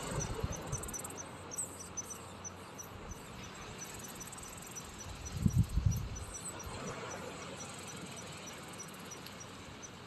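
An insect chirping steadily, about four short high-pitched chirps a second, over a soft outdoor hiss, with a brief low rumble about halfway through.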